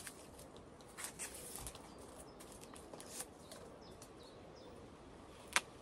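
Leaf stalks being stripped off a freshly pulled leek by hand: soft rustles and a few crackles, with one sharp snap near the end. Faint bird chirps sound in the background.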